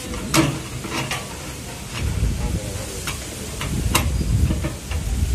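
Lever-type grease gun being pumped by hand into a truck's leaf-spring shackle pin, giving irregular sharp clicks from the lever and plunger over a steady low rumble.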